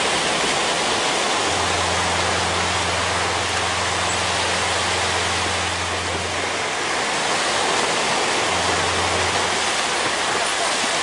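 Small waves breaking and washing up a sandy beach: a steady rushing noise. A low hum comes in about a second and a half in, stops about two-thirds of the way through, and returns briefly near the end.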